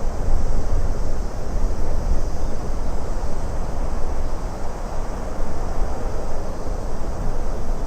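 Steady rushing wind with a deep, fluctuating low rumble and a faint high hiss.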